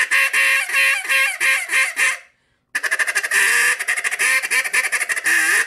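Single-reed duck call blown by mouth: a string of quacks, a short pause, then a fast chattering feed call. The reed is set engraving-down, a setup meant to give more hold and a mushier feed.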